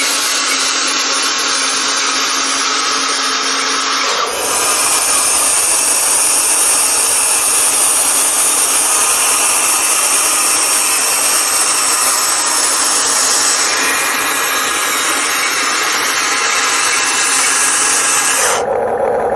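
A toy remote-control excavator's small electric gear motors whirring and grinding as it digs, with the bucket scraping through dirt. The sound shifts about four seconds in and cuts off abruptly near the end.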